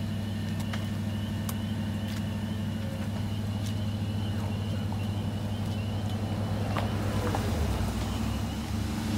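Ambulance engine idling with a steady low hum, with a few light clanks as a patient stretcher is loaded into the back.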